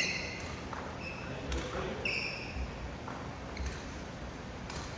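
Badminton rackets hitting shuttlecocks in a fast feeding drill, a sharp crack about once a second, with sneakers squeaking and feet thudding on the court floor between shots.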